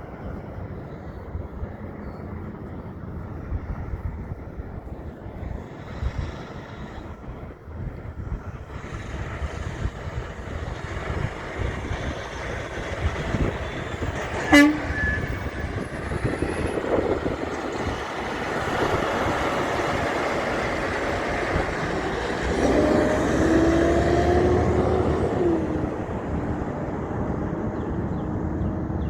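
A heavy truck's engine rumble grows louder as it approaches, with a short, sharp horn blip about halfway through and a longer two-tone horn blast held for about three seconds near the end.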